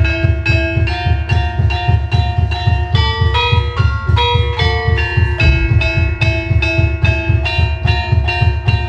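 Javanese gamelan music accompanying the horse dance: metallophones play a quick, continuous run of ringing notes, about four a second, over a steady drum beat.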